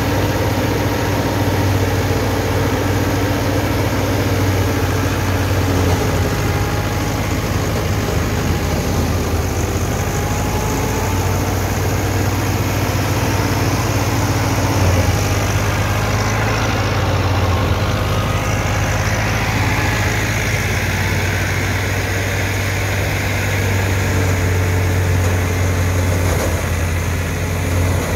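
Massey Ferguson 385 tractor's four-cylinder diesel engine running steadily under load, powering a wheat thresher through its PTO shaft, with the thresher's drum whirring as sheaves are fed in.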